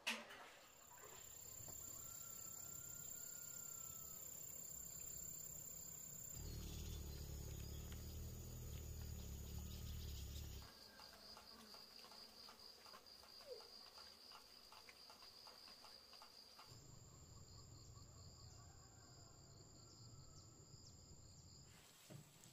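Faint insects trilling in a steady high-pitched drone. The background changes abruptly several times, with a low rumble in two stretches.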